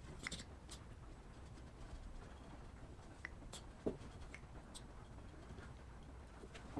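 Faint soft rubbing of a hand spreading wood glue along the face of a 2x6 board, with a few light clicks and taps, over a low steady hum.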